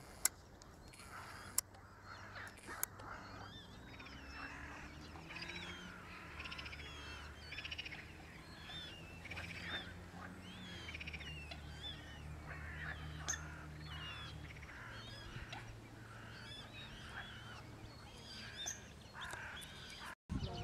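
Mallard ducklings peeping: many short, high calls that rise and fall, kept up throughout. Three sharp clicks come in the first three seconds, and a low steady hum runs under the middle.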